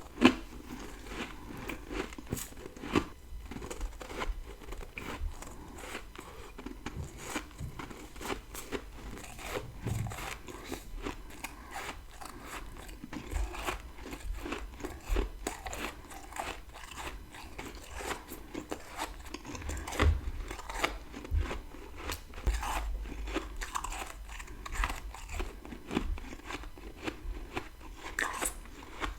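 Close-miked chewing of a big bite of freezer frost: dense crunching and crackling from the powdery ice, many small cracks a second.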